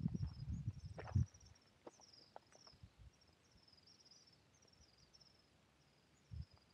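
Faint, high-pitched chirping of small wildlife, in short phrases repeated about every second, with a low rumble during the first second and a half.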